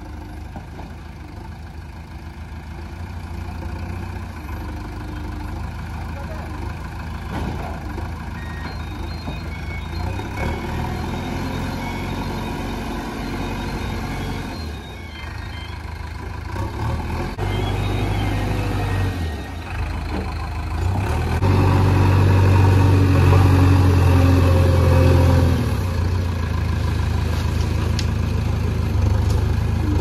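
Diesel engine of a JCB 3DX backhoe loader working, its note rising and falling with the load and swelling loudest for several seconds past the two-thirds mark.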